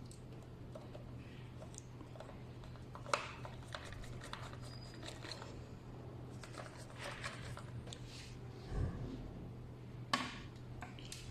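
Hands handling hard-drive and NVR-case hardware: scattered light clicks and scrapes, two sharper clicks about three seconds in and near the end, and a dull thump about nine seconds in, over a steady low hum.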